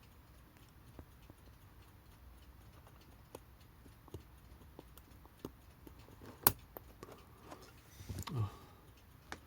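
Small, irregular metallic clicks and taps of tweezers and a tiny steel pin against the brass alarm-clock movement, with one sharper click about six and a half seconds in. A brief murmur comes near the end.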